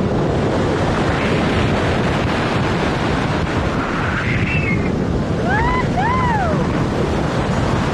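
Steady, loud wind buffeting the camera microphone during a tandem parachute descent under canopy. About six seconds in there are two short, high-pitched tones, each rising and falling.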